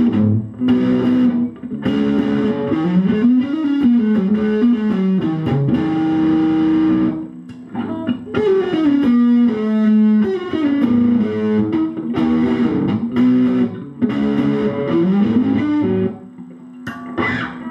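Schecter C1 Exotic Star electric guitar played through the distortion channel of a valve amp head, in a high-gain modern metal tone. It plays runs of notes that climb and fall, with brief stops about seven seconds in and again near the end.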